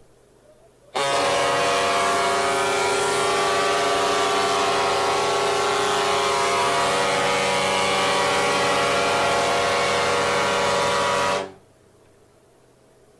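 The ship's horn of the motor ship Ivan Franko sounding one long, steady blast of about ten seconds. It starts about a second in and cuts off shortly before the end.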